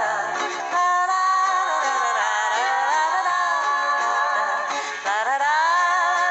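Music: a voice holding long sung or hummed notes that slide up and down in pitch, without words.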